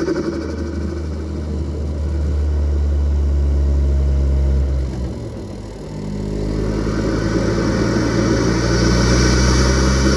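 Full-bolt-on Ford Focus ST's turbocharged engine running steadily, then easing off about five seconds in and building up again over the following seconds.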